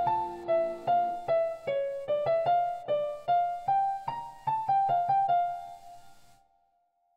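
Keyboard with a piano sound playing a slow melody of single struck notes, each left to ring and fade. It ends on a last note that dies away about six and a half seconds in.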